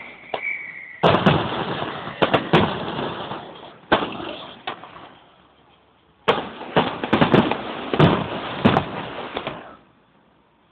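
Fireworks display: aerial shells bursting in two rapid volleys of loud bangs and crackling. The first volley starts about a second in and the second about six seconds in. The noise drops away suddenly near the end.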